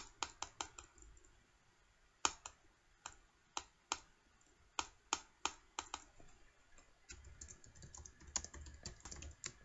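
Typing on a computer keyboard: faint, irregular keystroke clicks, with quick runs of several keys near the start and near the end and scattered single keys between.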